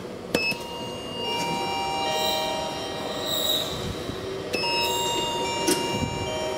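A sharp click, then a metro train's wheels squealing with several high tones held over a rumble. The squeal swells about a second in and freshens with another click about four and a half seconds in.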